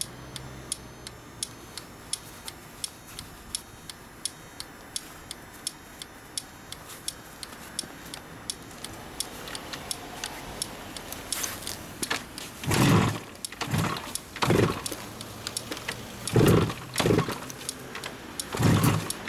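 Kawasaki Mach III 500SS H1C's air-cooled two-stroke triple being kick-started: from about twelve seconds in, several kicks, each a brief burst as the engine turns over. Before that, a light ticking about three times a second.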